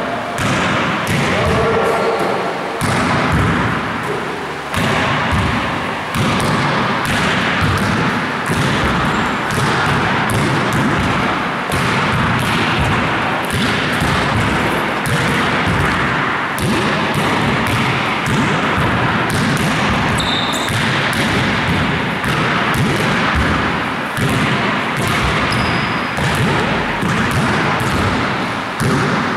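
Basketballs being bounced and passed: many quick thumps of ball on floor and hands, overlapping in a dense, steady clatter, with a couple of brief high squeaks.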